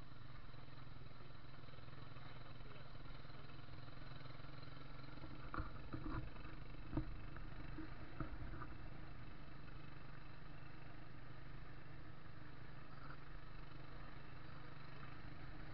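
Habal-habal motorcycle taxi running steadily with its riders, heard from the passenger seat as a low, even hum. A few short knocks come about six to eight seconds in.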